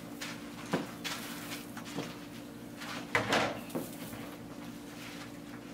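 An 18-inch paint roller on an extension pole being rolled forward and back through wet polyurethane floor coating, with a few short knocks and clicks from the roller and pole, the loudest about three seconds in, over a steady low hum.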